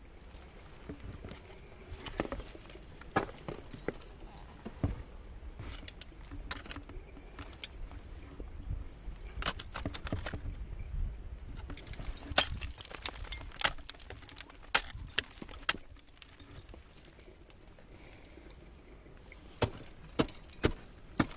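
Sharp, irregular knocks and metallic clinks of ice climbing: ice axe picks and crampon points striking waterfall ice, with climbing gear clinking. The strikes come in a dense cluster about halfway through and again near the end.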